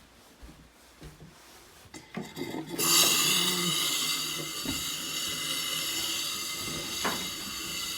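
A faucet opened while compressed air is pushed through the water lines to blow them out for winter: a steady, loud hiss of rushing air that starts suddenly about three seconds in, after some faint handling noises, with a single knock near the end.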